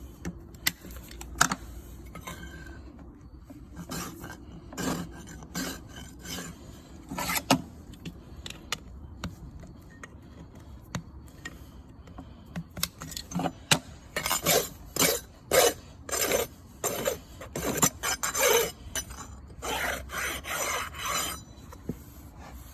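Farrier's rasp filing a horse's hoof: scattered strokes at first, then a quick, even run of rasp strokes, about two a second, over the later part.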